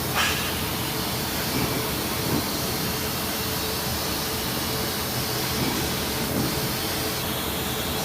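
Machinery running steadily: an even mechanical hiss with a faint constant hum and whine, like machine-shop equipment running.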